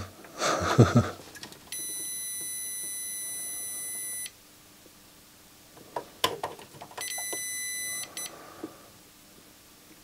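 UNI-T UT61E multimeter's buzzer beeping in diode-test mode as the probes sit across a power-supply rectifier diode while the capacitors charge. One steady high beep of about two and a half seconds, then a second beep of about a second. Small clicks of the probe tips on the circuit board fall between them.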